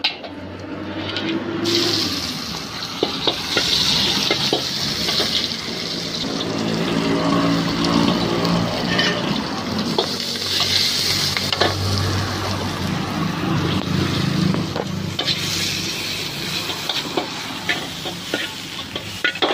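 Hot oil sizzling loudly in a wok as sliced onion and greens are stir-fried, with a metal ladle clicking and scraping against the wok. The sizzle surges about two seconds in, as the onion hits the oil.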